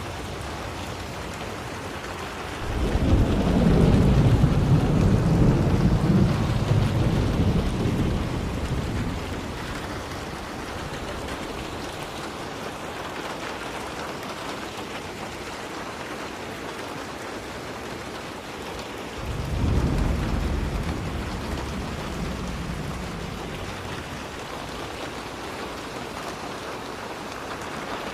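Steady heavy rain falling, with thunder rolling twice: a long low rumble about three seconds in that fades away over several seconds, and a shorter one near two-thirds of the way through.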